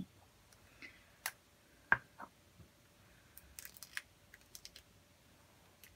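A few small plastic clicks and taps from handling and uncapping a lipstick sample tube. The sharpest click comes about two seconds in, followed by a quick run of faint ticks near the middle.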